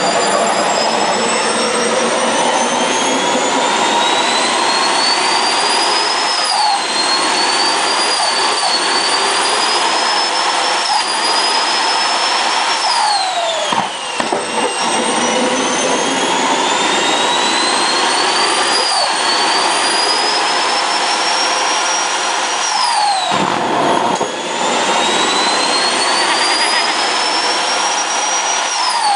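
Twin homemade turbojet engines on a golf cart running loudly, with a high turbine whine that climbs slowly as they spool up and then drops quickly, several times over a steady jet roar.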